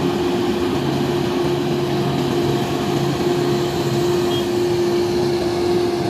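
Heavy five-axle mobile crane's diesel engine running steadily as the crane drives slowly, a constant rushing noise with a held hum.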